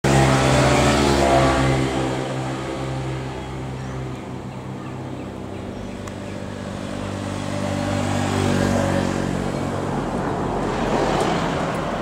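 Motor vehicles passing on the road: a loud engine fades away over the first few seconds, then another vehicle approaches and goes by, its engine loudest around eight to nine seconds in, with a swell of road noise about a second later.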